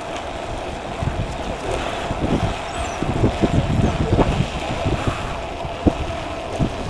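Wind buffeting a phone microphone carried on a moving bicycle: an uneven low rumble with gusts, over a thin steady tone.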